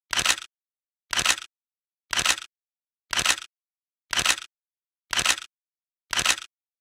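Camera shutter sound effect, a short click-and-whir repeated seven times at a steady pace of about one a second, with dead silence between shots.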